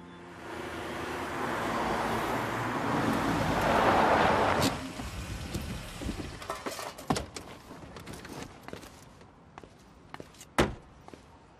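A Toyota taxi pulling up, its noise swelling and cutting off sharply about four and a half seconds in. Small clicks and rattles follow, then a car door shuts with one sharp clunk near the end.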